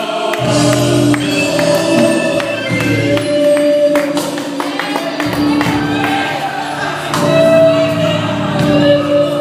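Gospel music: singing and held notes over a bass line, with a regular light percussion beat.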